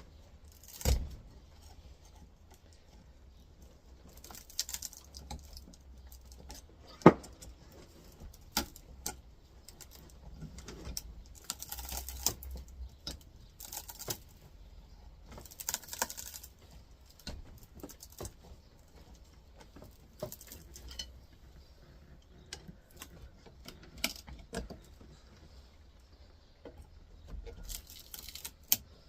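Scattered metallic clinks, rattles and knocks as half of an electric motor's stator is clamped in a vise and worked at to free its copper windings. One sharp knock about seven seconds in is the loudest, and there are several short scraping rustles.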